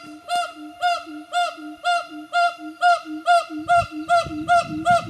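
Gibbon (imbo) calling: a regular series of pitched hoots, about two a second. A low rumble comes in about three and a half seconds in.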